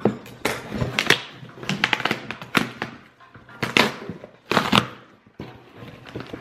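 A cardboard shipping box being torn open by hand: packing tape ripping and cardboard flaps pulled and scraping, in a series of short rips and rustles with brief pauses.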